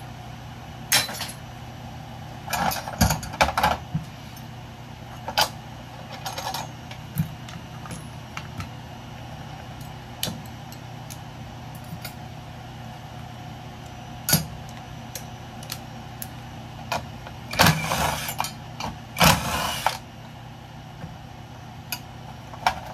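Metal scrap being handled: scattered clinks and knocks, with two louder scraping rattles of about a second each near the end, over a steady low hum.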